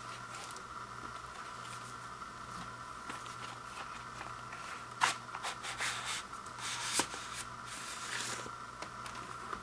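Cardboard record jacket and a vinyl LP in its black inner sleeve being handled and slid out: papery rustling and scraping, with a sharp tap about five seconds in and another near seven seconds.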